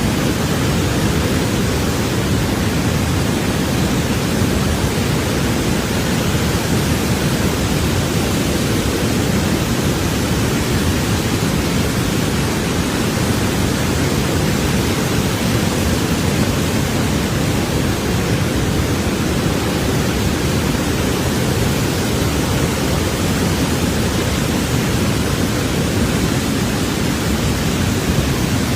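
Floodwater rushing in a loud, steady, unbroken noise that is heaviest in the low range.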